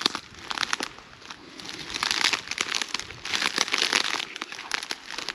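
Dry reeds and grass crackling and rustling, with two denser swells of rustling about two and three and a half seconds in.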